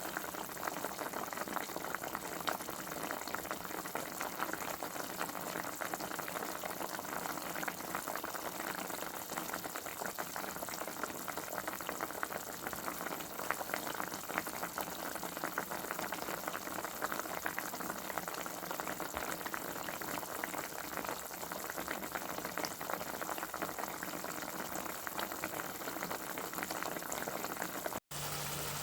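Food boiling in a pot on a stove: a steady, dense bubbling with fine crackle. Near the end it cuts off abruptly and a different sound with a steady low hum starts.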